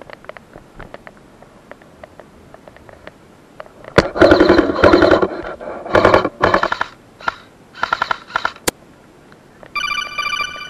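Two-way radio: a voice comes over the handset for about four and a half seconds, opened and closed by sharp clicks, then a run of electronic beeps near the end. Before it, only faint ticks and rustles.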